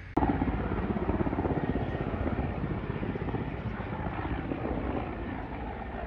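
Firefighting helicopter's rotor and engine, a loud fast chopping beat that starts abruptly just after the start and eases off slightly.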